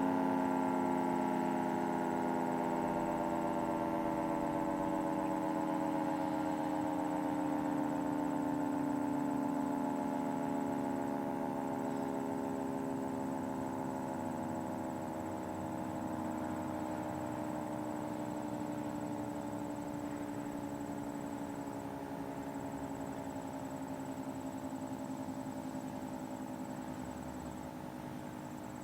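Federal Signal 2T22 dual-tone outdoor warning siren winding down after its test signal: its two-note chord slowly falls in pitch and fades.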